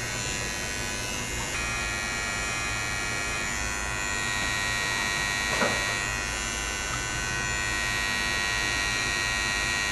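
Corded electric hair clippers buzzing steadily as they cut a design into short hair.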